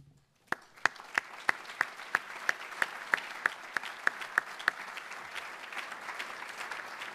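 Audience applauding. One person claps loudly close to the microphone at about three claps a second through the first five seconds, over the steady clapping of the room.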